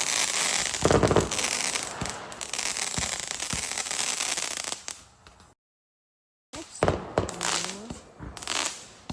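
Fireworks going off: a dense crackle with a heavy boom about a second in, fading out after about five seconds. After a second of dead silence, more sharp bangs follow.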